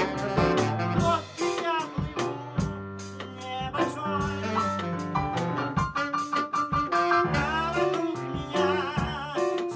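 Live band playing: saxophone, keyboard, violin and drum kit with a steady beat, and a man singing along at the keyboard.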